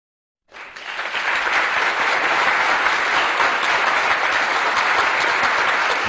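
Crowd applause, starting about half a second in and holding steady.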